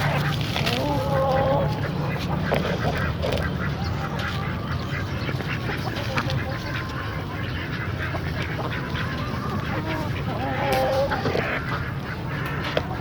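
Domestic fowl calling in an enclosure: two longer wavering calls, one about a second in and one near the end, with scattered short calls and clicks, over a steady low rumble.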